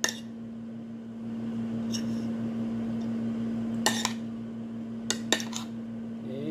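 Metal spoon and fork clinking and scraping against a plate, with scattered sharp clinks that come closest together about four to five and a half seconds in, over a steady low hum.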